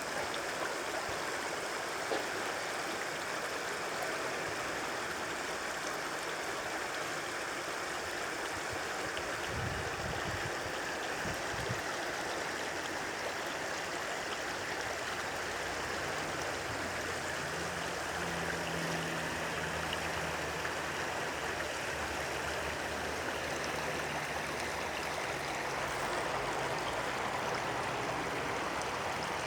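A small stream babbling steadily over stones, an even, continuous trickle of running water.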